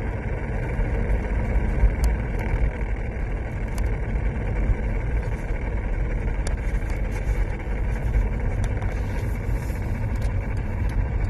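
Mercedes-Benz W203 C-Class running, a steady low rumble with a few separate sharp ticks.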